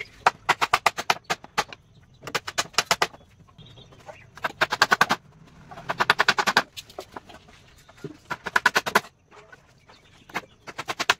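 Hammer tapping nails into the softwood slats of a wooden frame. The blows come in about six quick bursts of around eight a second, with short pauses between.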